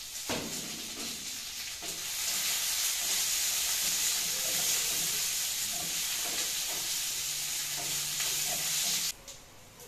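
Green vegetables stir-frying in a hot wok over a gas flame, stirred with a wooden spatula: a loud, steady sizzle that swells about two seconds in and cuts off abruptly near the end.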